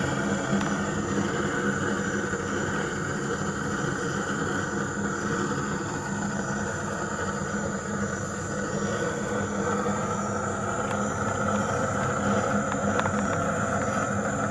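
A steady machine hum throughout: a low drone with a fainter, higher whine held level, from a small motor or fan running.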